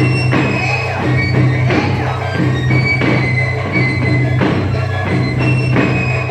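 Instrumental music for a Mexican regional folk dance, with a regular drum beat and a high melody line over a steady low drone.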